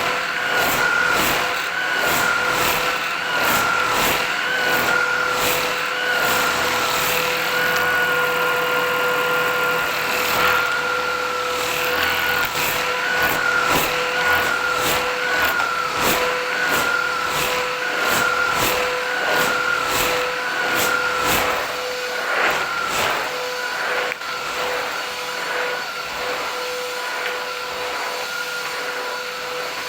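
Philips 8000 series vacuum cleaner running steadily with a high motor whine. A regular clicking, about two a second, runs through most of it and fades out a few seconds before the end.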